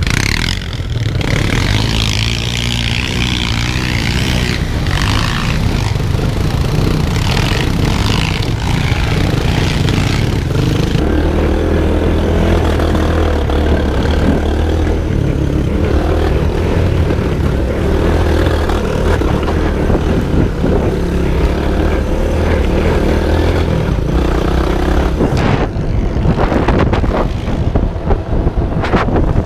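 Off-road vehicle engine running and revving, its pitch rising and falling for the first ten seconds or so, then holding a steady note under throttle, with more revving near the end.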